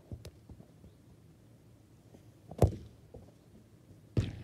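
Two sharp thuds of a football being kicked, about a second and a half apart, the first the louder, with a few faint knocks before them.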